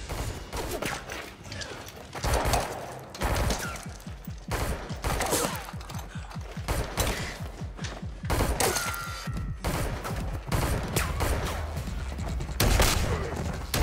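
Gunfight sound effects: repeated gunshots and sharp mechanical clacks in irregular bursts, over a throbbing low film score.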